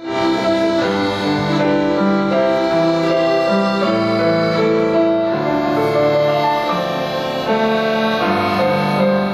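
A small live band of keyboard and double bass plays the instrumental introduction to a song: sustained chords that change about once a second over low bass notes, before any singing starts.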